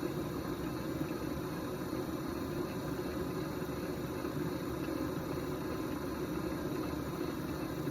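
Electric potter's wheel motor running at a constant speed while clay is thrown on it: a steady, unchanging hum.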